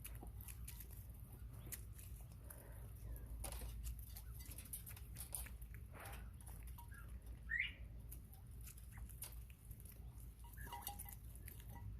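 Faint pecking and scratching of bobwhite quail feeding, with a single short rising chirp a little past halfway.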